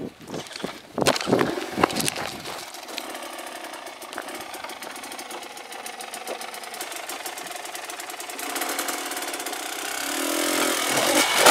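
A 300cc two-stroke dirt bike engine running at low revs with a fast, even pulse, getting louder over the last few seconds. A few sharp knocks on wood come in the first two seconds.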